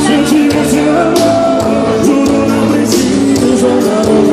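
Live band music: a drum beat over steady held instrument chords, loud throughout.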